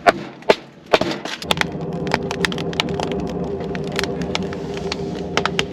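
Sharp cracks and snaps of dry wood being split into kindling with a knife, repeated irregularly. A steady low hum sets in about a second and a half in and runs under them.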